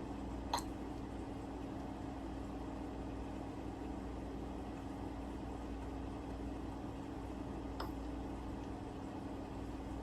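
Steady low room hum with a constant drone, broken by two faint clicks, one about half a second in and one near the eighth second.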